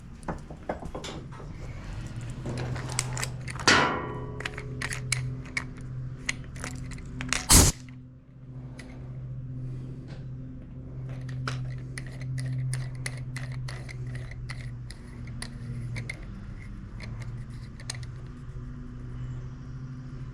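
Scattered small metal clicks, clinks and knocks of tools and fittings as a leak-down tester is hooked up to an engine's spark plug hole, over a steady low hum. One short, very loud burst comes about seven and a half seconds in.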